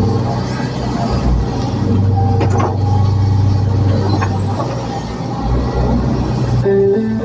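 Hitachi ZX110 amphibious excavator's diesel engine running steadily with a low drone. Two short knocks sound about two and a half and four seconds in, and music comes back in near the end.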